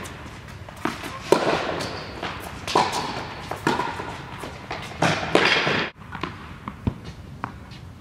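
Tennis balls struck by rackets and bouncing on a hard court, each sharp pop ringing on in the echo of a large indoor tennis hall, about one a second. The sound cuts off suddenly about three-quarters of the way through, leaving fainter ticks of ball bounces and footsteps.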